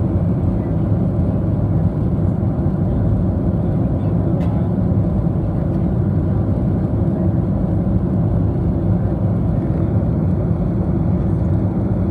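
Steady cabin noise of a Boeing 737 jetliner in cruise: the jet engines and the airflow over the fuselage heard from a window seat as an even, low rumble that does not change.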